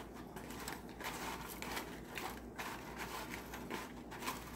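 Plastic spoon stirring jewelry through a cleaning solution in an aluminium-foil-lined dish, with faint, irregular scraping and crinkling of the foil.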